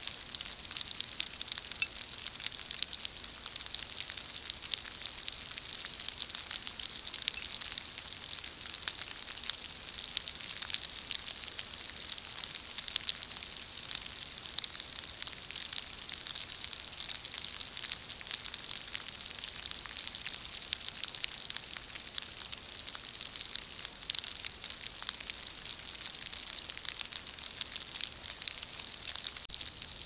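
Steady rain: a dense, even pattering crackle of many small drops.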